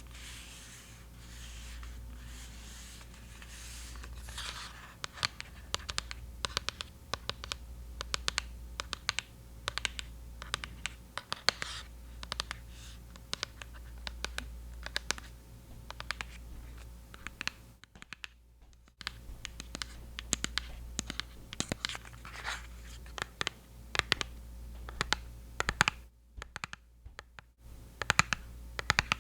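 Rapid, close-up scratching and clicking on a NYX Epic Wear waterproof eyeliner, made as ASMR triggers. The scratching begins about four seconds in, with two brief pauses.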